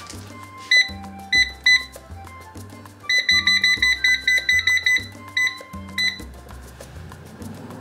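Digital air fryer control panel beeping as its touch buttons are pressed. Three single beeps come first, then a fast run of about eight beeps a second for nearly two seconds as the setting is stepped down, then two more single beeps, over background music.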